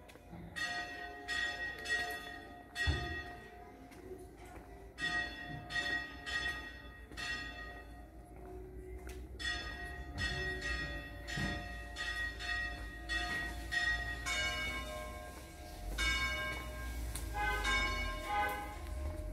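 Church bells ringing. At first one bell is struck over and over in runs, about two strokes a second with short pauses. Later several bells of different pitches sound in turn.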